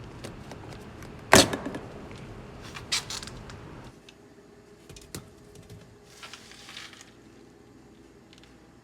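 Plastic door-panel trim piece being pried out with a tool: a loud sharp snap about a second and a half in as it pops loose, then a second click near three seconds. A few lighter clicks and a short scrape of plastic handling follow.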